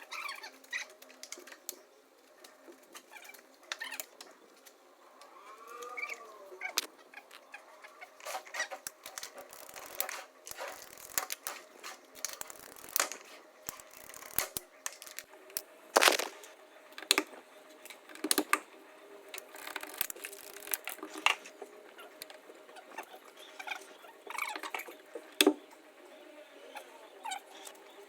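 Irregular clicks, taps and knocks of hand tools and metal fittings being handled during boiler and pipe installation, a few sharper knocks standing out, over a faint steady hum.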